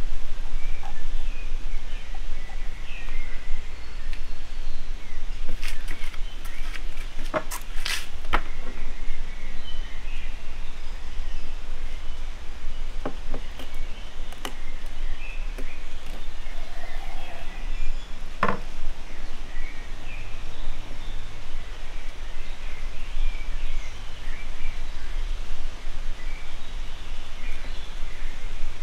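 Outdoor ambience: a steady low rumble with small birds chirping here and there, and a few sharp clicks and taps, most about 7 to 8 seconds in and again near the middle, as metal skewers are handled while raw quail are threaded onto them.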